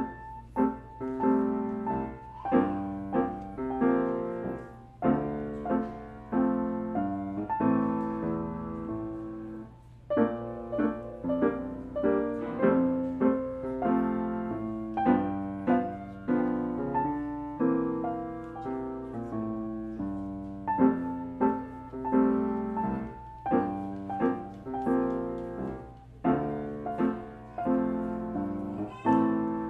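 Steinway grand piano played as a four-hand duet by two players at one keyboard: a simple, steady tune in even notes that starts right at the beginning and stops briefly about ten seconds in before carrying on.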